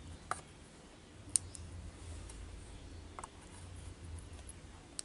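Soldering iron working on a transistor's legs on an amplifier circuit board: a few sharp clicks a second or two apart, over a low hum.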